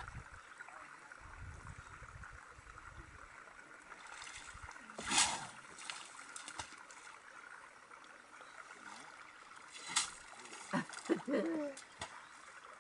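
An African elephant splashing water with its trunk in a shallow waterhole: two short splashes, about five seconds apart.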